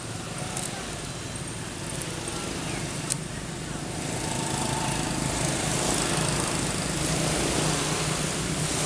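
A small engine runs steadily and grows louder from about four seconds in, with a sharp click about three seconds in.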